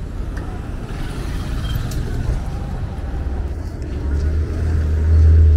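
City street ambience: a motor vehicle's low rumble that grows louder toward the end, with passers-by talking.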